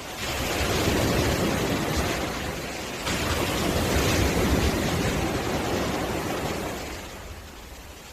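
Ocean surf breaking and washing up a beach in two swells: one at the start and a second from about three seconds in, which fades near the end.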